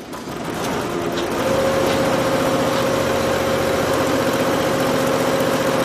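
Richpeace chenille embroidery machine starting up and running, building over the first second and a half to a steady rapid stitching with a steady motor whine as the frame drives the fabric under the needle.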